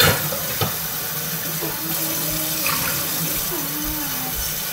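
Steady rush of running water, with a faint voice in the background.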